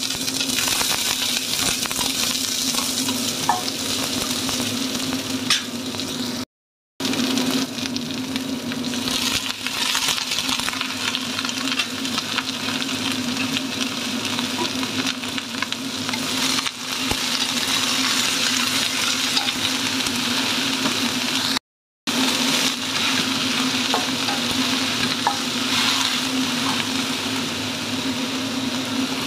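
Napa cabbage, carrot and long beans sizzling as they are stir-fried in a steel wok, with a wooden spatula scraping and turning them now and then. A steady low hum runs underneath, and the sound drops out twice for a moment.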